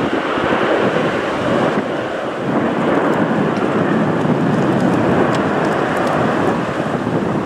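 Airbus A380's four Rolls-Royce Trent 900 engines at takeoff thrust as the airliner climbs out. It is a loud, steady rumble with no clear tone.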